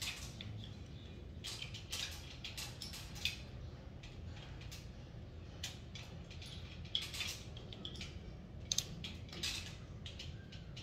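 Irregular light metallic clinks and clicks from a punching bag's hanging chain and fittings as the chain is fastened to a ceiling mount.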